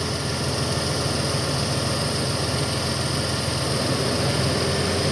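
1997 Toyota Avalon's V6 engine idling steadily, driving a freshly installed power steering pump and new belts while the power steering system is being bled.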